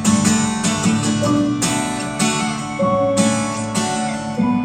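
Live band music with a strummed acoustic guitar over sustained chords, in a pause between sung lines of a song.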